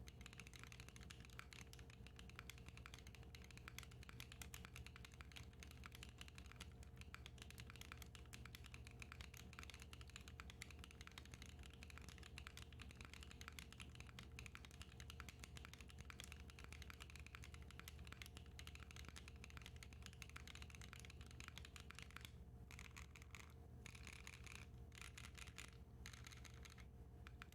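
Continuous typing on a Matrix 6XV 3.0 Corsa mechanical keyboard with lubed Hera switches, an aluminium plate, GMK keycaps and no case foam: a steady stream of key clacks, with a few brief pauses near the end.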